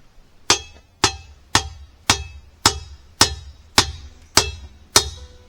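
Hammer blows on a steel exhaust header, about two strikes a second, each ringing out briefly. The header tube is being beaten flat so it clears the control arm bracket.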